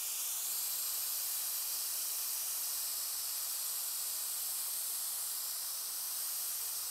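Steady hiss of compressed air escaping from a Taipan Veteran 2 PCP air rifle's air tube through its partly opened unfill (bleed) screw, as the tube is depressurised.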